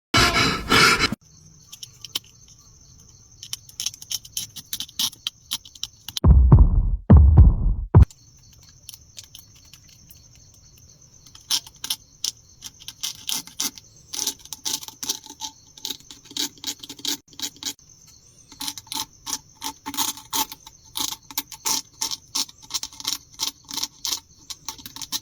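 Needle point tapping and scraping along the outline of a heart in brittle dalgona honeycomb candy: quick, irregular clusters of sharp little ticks and scrapes. A few louder, duller bursts break in near the start and again about a quarter of the way through.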